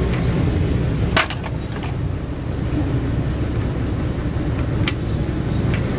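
Steady low rumble of road traffic, with a few sharp metal clicks from hands working at the centre of a car's front wheel hub; the loudest click comes about a second in.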